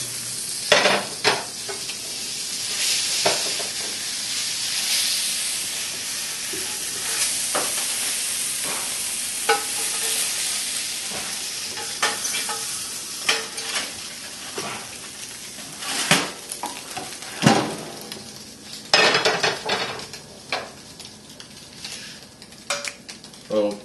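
Hamburger patties sizzling in a hot skillet of bacon grease while a metal spatula scrapes and clanks against the pan, lifting them out. The sizzle fades in the second half, leaving scattered sharp knocks.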